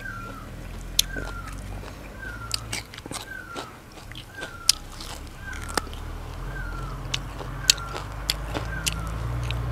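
Close-up eating sounds: a man biting and gnawing at a piece of meat held in his hands, with sharp smacking and crunching clicks. Behind it a bird repeats a short falling call about once a second over a steady low hum.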